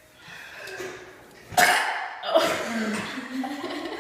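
A woman belches loudly. A sudden harsh burst comes about one and a half seconds in, then a long, low burp that rises a little in pitch toward the end.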